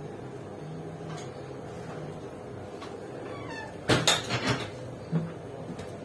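A cluster of sharp wooden knocks and clatter about four seconds in, with one more knock a second later, over a low steady hum; just before them, a short high squeak falls in pitch. The knocks fit the butcher's wooden chopping block being struck or meat and knife being handled on it.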